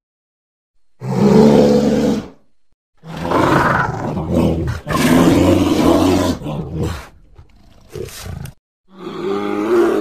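Creature sound effects for an infected, zombie-like sauropod: a roar about a second in, a longer run of roars and growls from about three to seven seconds, a short growl near eight seconds and another roar near the end, with dead silence between them.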